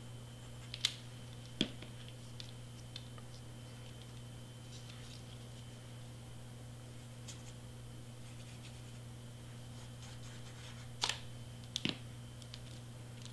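Cardstock being handled and pressed down while gluing: a few light, sharp taps and clicks, two about a second in and a small cluster near the end, with faint paper scratching between, over a faint steady hum.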